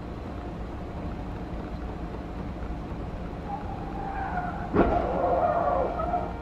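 Low road and engine rumble heard from inside a car, then tyres squeal for about a second and a sudden loud bang about five seconds in, with the squealing carrying on briefly after it.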